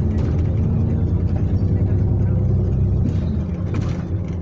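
Bus engine and road noise heard from inside the moving bus: a steady low drone whose deepest rumble eases about three seconds in.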